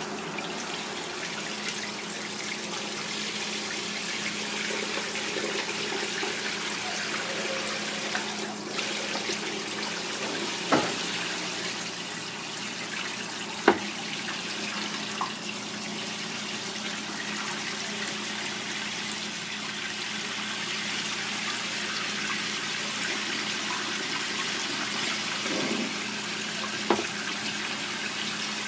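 Water spraying from a sink tap onto a cuttlefish and a cutting board in a stainless steel sink, a steady hiss, over a low steady hum. A few sharp knocks stand out, about eleven and fourteen seconds in and again near the end.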